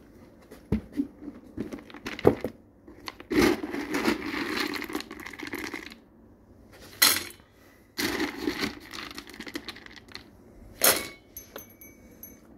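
Dry dog kibble rattling as it is scooped from a plastic container and tipped into a stainless steel bowl, in several separate bursts, one long rattle a few seconds in and some short sharp clatters.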